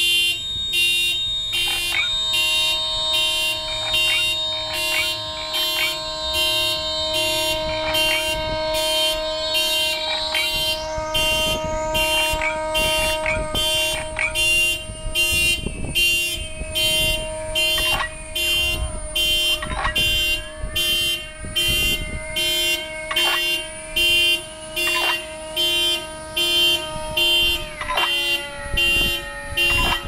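Electronic car-alarm sounds played as a sound-art piece through two cars: a fast, evenly repeating pulse under layered steady tones, with a tone rising about ten seconds in and pitches sliding and shifting in the second half.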